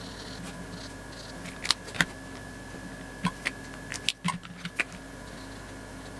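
Felt-tip marker scratching lightly on paper, then a string of sharp plastic clicks and taps as the blue jumbo marker is put down and a red one picked up, over a faint steady hum.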